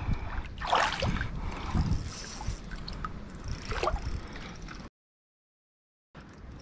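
Water sloshing and splashing right at the microphone, with louder splashes about a second in, near two seconds and near four seconds. The sound cuts out completely for about a second near the end.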